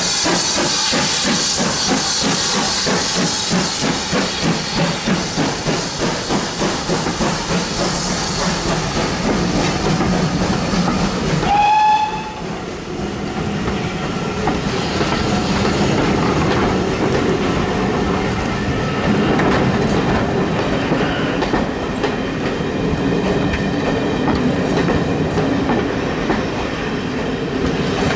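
GWR 57xx pannier tank steam locomotive passing close at work, its exhaust beating about twice a second over a loud hiss of steam. About twelve seconds in the engine has gone by, a brief high note sounds, and the coaches roll past with a steady rumble and clack of wheels over the rail joints.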